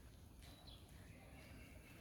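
Near silence: faint background hum and hiss.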